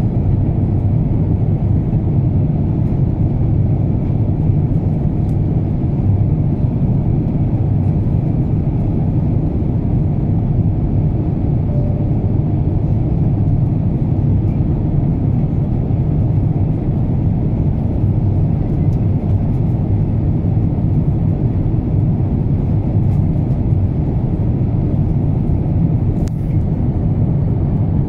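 Airbus A350-900 cabin noise heard from a window seat over the wing: the steady low rumble of its Rolls-Royce Trent XWB engines and the airflow past the fuselage in flight.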